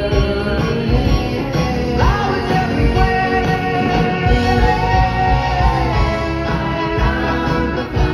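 Live pop-rock band playing and singing, with a long held sung note from about two seconds in over steady drums and bass.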